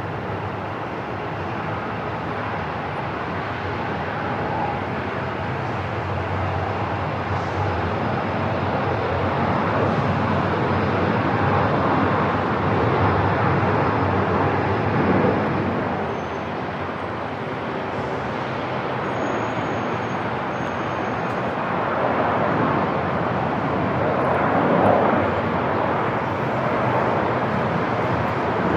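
Airport ambience: a steady rush of aircraft engine noise, swelling gently about halfway through, easing off, then rising again near the end.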